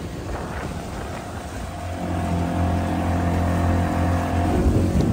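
Motor driving a Prius converted into a pontoon boat, running steadily under way with the wash of its wake. Its note firms up and grows a little louder about two seconds in.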